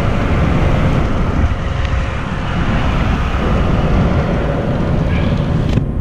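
Steady road and wind noise inside the cab of a moving truck.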